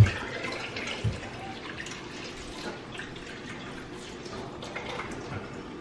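Kitchen handling noises: a sharp thump, a second thump about a second later, then scattered light clicks and rustles as things are moved about at the counter.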